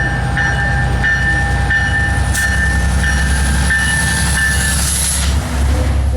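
Passenger train passing close by: a deep, steady engine rumble with wheels clacking over the rails, and a steady high wheel squeal that stops about five seconds in.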